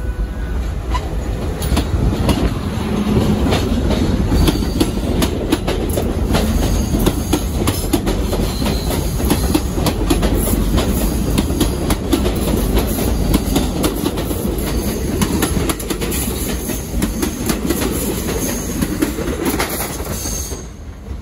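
R32 subway train pulling out of the station and passing close by: a steady heavy rumble with wheels clicking rapidly over the rail joints. It builds over the first couple of seconds and eases near the end.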